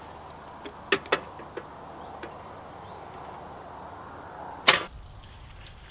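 Light clinks and knocks of cookware and utensils at a camper's worktop stove, then one loud knock near the end, over a steady hiss that fades after it.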